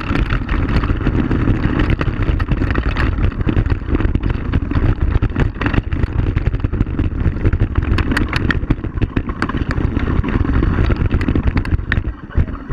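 Quad bike (ATV) engine running while riding over a gravel track: a dense, loud low rumble with frequent clicks and rattles. It eases briefly near the end.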